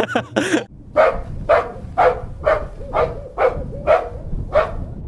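AI-generated sound effect of a dog barking repeatedly, about eight barks at roughly two a second, cut off abruptly at the end.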